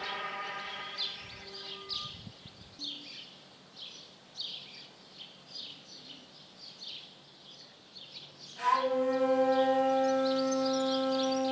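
Shakuhachi, a long end-blown bamboo flute: a held note fades out over the first two seconds. Then comes a quieter pause with small birds chirping over and over. About nine seconds in, a new, louder note starts and is held steady.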